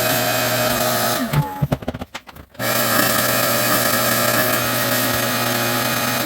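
Pressure washer running and spraying. It cuts off about a second in and winds down, starts again abruptly a second and a half later, and cuts off again at the end as the trigger is released.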